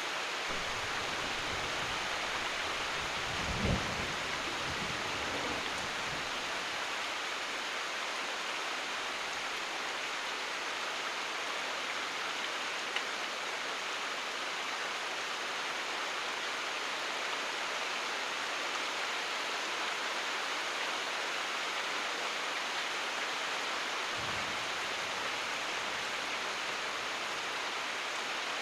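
Steady rain hiss, with a low rumble of distant thunder about three to six seconds in and a fainter rumble near the end.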